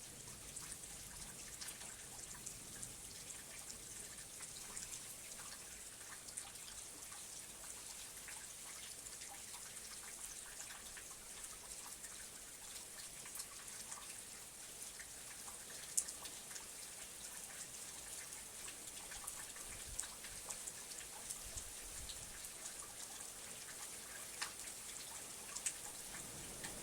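Steady rain falling, a soft high hiss with scattered individual drops ticking on a surface, one sharper drop about two-thirds of the way through.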